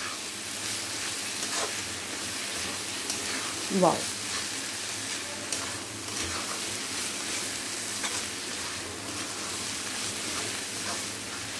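Spring onion greens, moong dal and green peas sizzling in a steel kadhai while a metal spatula stirs them, with light scrapes against the pan.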